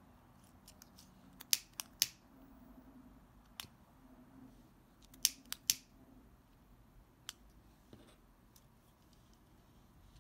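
Sharp clicks of a disposable lighter being struck, some in quick runs of three, as it is lit again and again to singe the edges of an organza ribbon petal so they curl inward.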